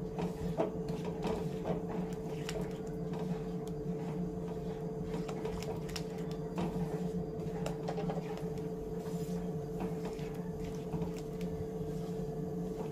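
Silicone spatula stirring and scraping a thick tomato-and-masala paste around a nonstick pan, with soft scattered clicks and squelches, over a steady hum from the induction cooktop.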